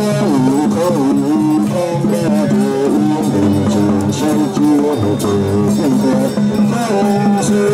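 Traditional music: a sliding, ornamented melody line over a steady low drone, playing continuously.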